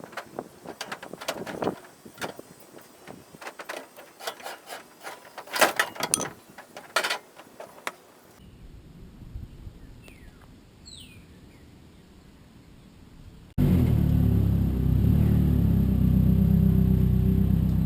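A run of scattered clicks and knocks, then a quiet stretch with a few bird chirps. About three-quarters of the way in, the steady low rumble of a car driving cuts in suddenly and stays loud.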